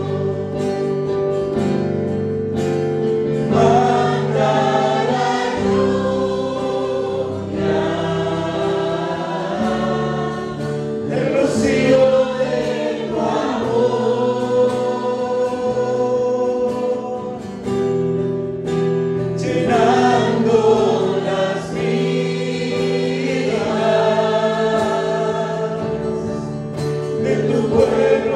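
Choir singing a Christian worship song, the voices rising and falling over long held accompanying chords.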